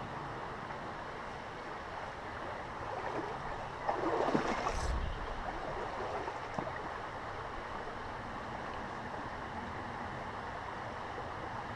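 Small river flowing steadily, with a brief louder noise about four seconds in.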